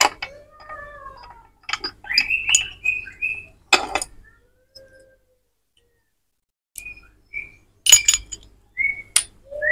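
Sharp metallic clinks of an old Yamaha Vixion's transmission gears and shaft being handled and lifted out of the split crankcase, several separate knocks with a quiet gap in the middle. Short high chirps and whistles sound over the clinks in the first few seconds and again near the end.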